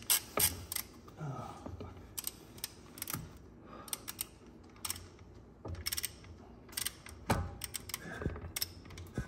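Hand socket ratchet clicking in short, irregular runs, with small metal clinks, as the flywheel bolts are run in against the crankshaft.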